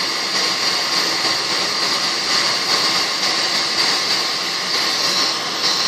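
Micro torch flame burning steadily with a hissing rush while it heats a sterling silver jump ring.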